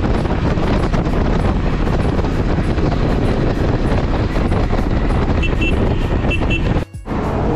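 Wind buffeting the microphone of a camera on a motorcycle riding at speed, with road and engine noise underneath. A few short high beeps come through about two thirds in, and the sound cuts out for an instant near the end.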